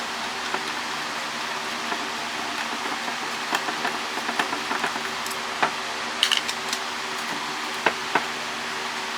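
Scattered small metallic clicks and clinks from hand tools working on a satellite LNBF's metal housing, with a short cluster of ringing clinks about six seconds in, over a steady fan-like hum.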